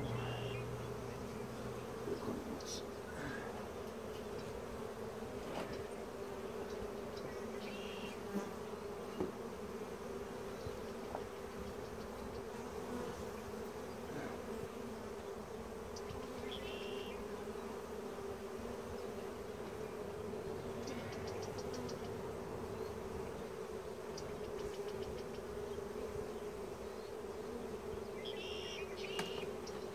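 Honeybee colony buzzing in a steady, even hum, with a few brief faint clicks scattered through it.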